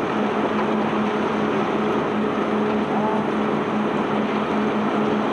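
Machinery of a self-unloading sand ship running steadily: a constant hum under an even rushing noise.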